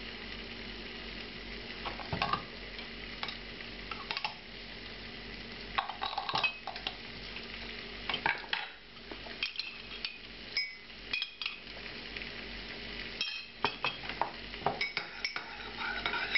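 A spoon scooping thick hoisin sauce into a small ceramic bowl and stirring it, with many short clinks and scrapes of the spoon against the bowl, most frequent in the second half. A steady low hum and hiss run underneath.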